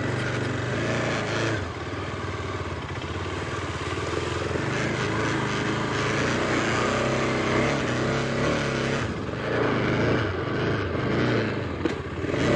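KTM 250 Adventure's single-cylinder engine running as the bike rides slowly off-road, its pitch rising and falling with the throttle.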